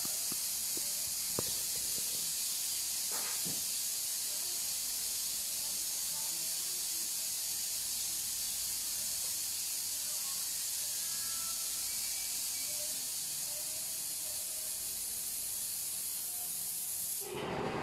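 Steady high-pitched hiss that cuts off suddenly just before the end, with a few faint clicks early on.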